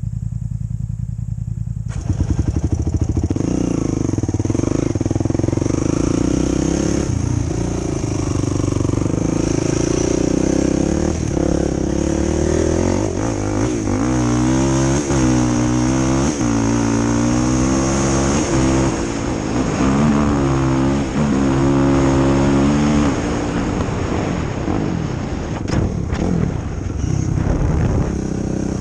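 Engine of a 2005 Yamaha YFZ450 quad, a single-cylinder four-stroke, running under way while being ridden. It gets louder about two seconds in, and its pitch then rises and falls over and over as the throttle is opened and closed.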